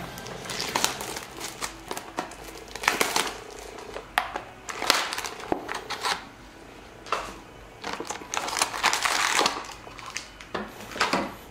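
A trading-card booster box being opened by hand: irregular crinkling and rustling of plastic wrap, cardboard and foil booster packs as the box is torn open, its paper insert slid out and the stack of packs lifted.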